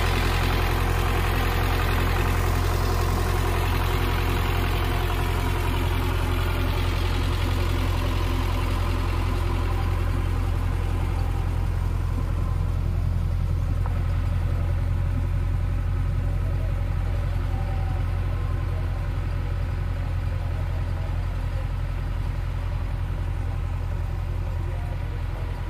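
Tractor's diesel engine running steadily under load as it pulls a potato planter, a constant low drone throughout.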